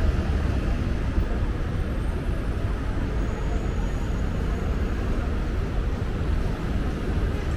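Steady city street traffic noise, a continuous low rumble with no distinct events standing out.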